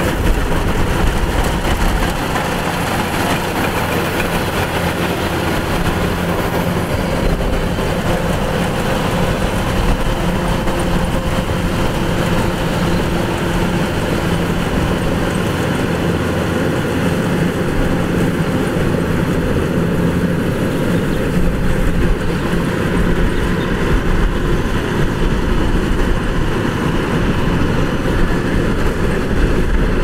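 Kubota DC-105X combine harvester's diesel engine and machinery running, a steady drone with a few held tones and no break.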